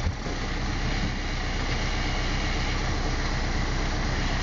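Tractor engine running steadily under load as it drags a wooden dock out of the water.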